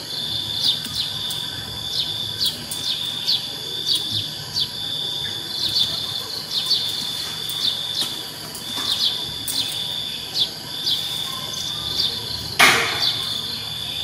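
A steady high-pitched insect trill with short chirps repeating over it. Near the end a single sharp knock stands out above it.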